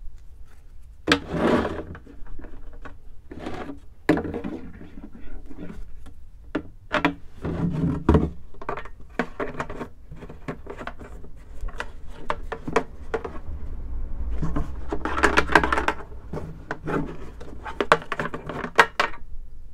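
Hands working a red plastic one-gallon gas can and its screw cap with fuel tubing and a filter: irregular clicks, knocks and rustles of hard plastic parts, busiest about three-quarters of the way through.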